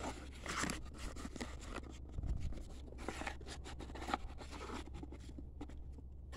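Trading card box cardboard and packs being handled: scattered scraping and rustling, with a dull low bump a little over two seconds in.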